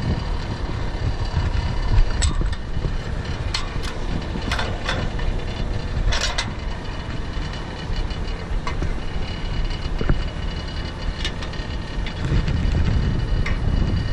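Boots knocking on the metal rungs of a fire truck's aerial ladder during a climb: sharp clanks every second or two at an uneven pace, over a steady low rumble.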